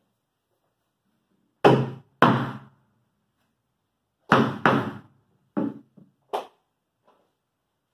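Six sharp knocks on the plywood of a boat hull and bulkhead, each ringing briefly, coming as two pairs and then two single knocks.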